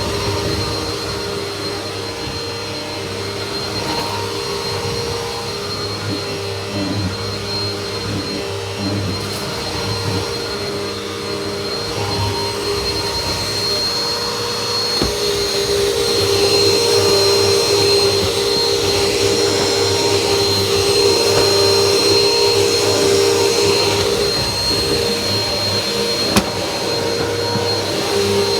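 Household vacuum cleaner running steadily, its motor giving a high whine, getting louder about halfway through; a single click near the end.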